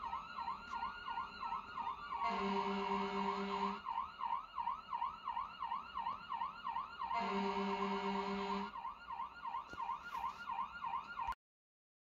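Electronic toy siren playing a fast warbling yelp, about three warbles a second, with a slow rising and falling wail at the start. A steady buzzy horn tone sounds twice over it for about a second and a half each. The sound cuts off suddenly near the end.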